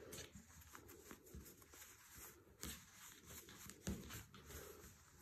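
Faint rustling of fabric as hands turn a sewn, lined fabric case right side out, with two soft taps about halfway through and a second later.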